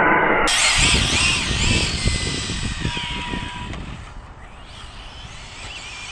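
Arrma Felony 6S RC car's brushless motor whining with rising and falling pitch glides over tyre rumble on tarmac, starting abruptly about half a second in and fading as the car pulls away.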